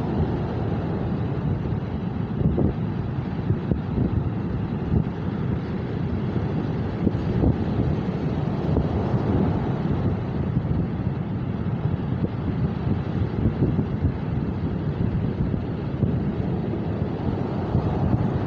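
Strong wind buffeting the microphone: a continuous low rumble with constant irregular gusty fluttering.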